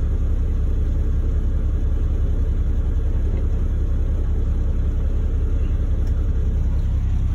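Heavy diesel engine idling with a steady low rumble, heard from inside a log truck's cab.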